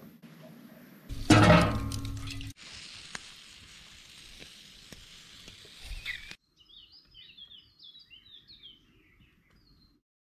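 A loud burst of noise about a second in, then a steady hiss with faint crackles, typical of meat sizzling over a fire. After it cuts off, small birds chirp in quick repeated calls.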